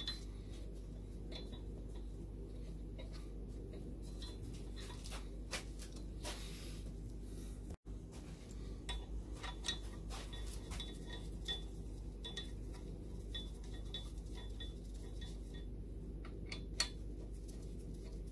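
Faint metallic clicking and clinking of a socket ratchet being worked on cylinder head bolts, with runs of small regular ticks, over a steady low hum.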